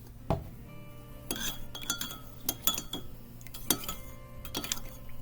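A stirring utensil clinking and tapping irregularly against the sides of a small container as white paint is stirred into oil and water, several of the knocks leaving a brief ring.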